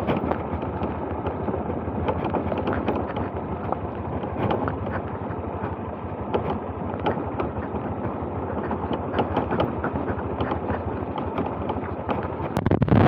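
Honda CB200X's single-cylinder engine running at low speed as the motorcycle rides down a rough off-road track. Frequent small knocks and rattles come through over the steady engine noise.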